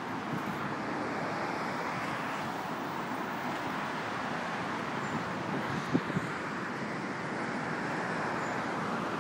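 Steady road traffic noise from cars crossing the bridge, with one brief knock about six seconds in.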